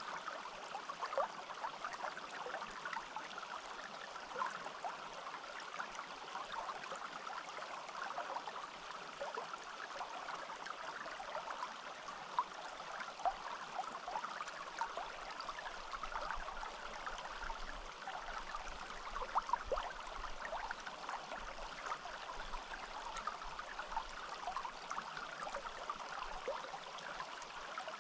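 Forest stream flowing steadily, a constant rush of water with many quick little gurgles and splashes.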